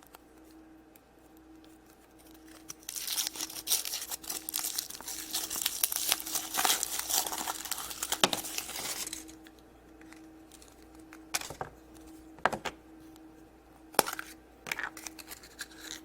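Foil wrapper of a chocolate surprise egg being torn and crinkled off for about six seconds, followed by a few sharp clicks and taps as it is handled.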